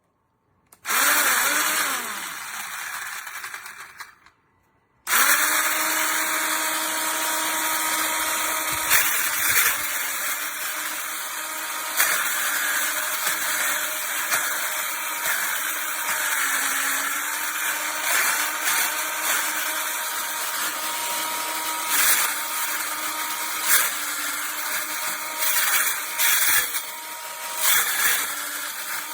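Corded circular saw motor running: a short run about a second in that winds down and stops after about three seconds, then a restart about five seconds in and steady running through the rest, with scattered short knocks.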